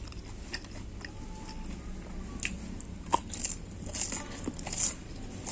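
Crispy fried tofu being bitten and chewed close to the microphone: a scatter of short, dry crunches and crackles, a few louder ones in the second half.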